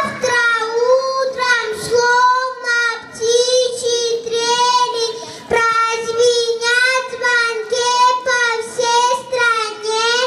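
A young girl sings solo into a handheld microphone, holding long notes of about a second each with a wavering pitch, with short breaths between phrases.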